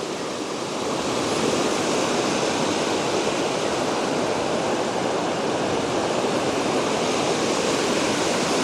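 A creek flowing: a steady rush of water that grows a little louder about a second in.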